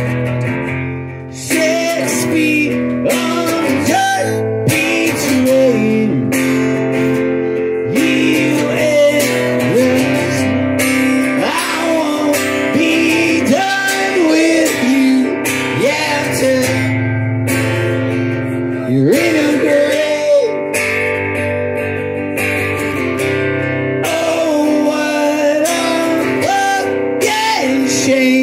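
A man singing a song while strumming a steel-string acoustic guitar, the chords struck in a steady rhythm under the voice.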